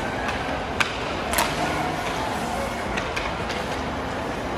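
Ice hockey game on the rink: a steady wash of rink noise with sharp clacks of sticks and puck, the two loudest about one and one and a half seconds in.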